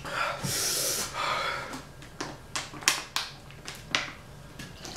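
A person breathing hard in two loud hissing huffs after eating something spicy-hot, followed by a string of sharp clicks and crinkles as a plastic water bottle is handled.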